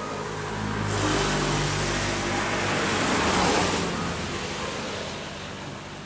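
A motor vehicle driving past close by: its engine and tyre noise swell over a few seconds, peak past the middle, then fade away.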